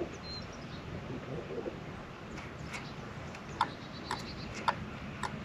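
A few sharp clicks in the second half from the fishing rod and reel as a jerkbait is twitched and reeled in, over faint steady wind-and-water noise. A bird chirps faintly near the start and again in the middle.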